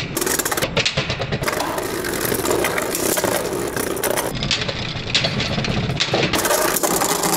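Two Beyblade Burst spinning tops, one of them Right Artemis Infinite, spinning and scraping on the plastic stadium floor, with rapid clicks and clinks as they knock into each other.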